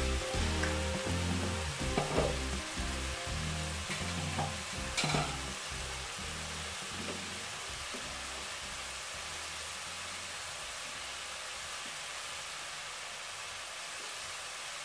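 Chicken pieces with onion and garlic sizzling in hot oil in a pot, a steady frying hiss. Background music fades out about five seconds in, leaving the sizzle alone.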